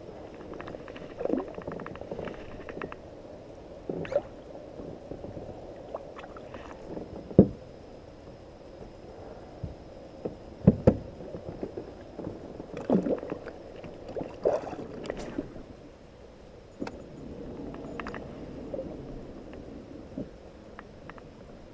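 Irregular knocks and bumps against a kayak's hull over a low wash of water sloshing and gurgling; the two sharpest knocks come about a third of the way in and near the middle.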